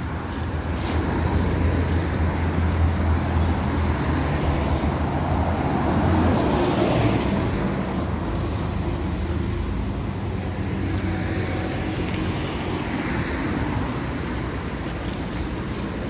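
Road traffic: cars driving by on a city street, with a low engine drone in the first several seconds and a car passing about six to seven seconds in.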